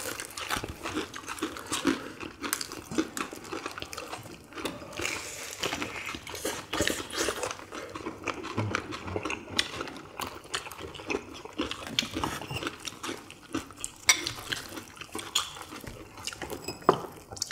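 People eating fried chicken drumsticks: a constant stream of wet chewing, crunchy bites and lip smacking, with quick irregular clicks.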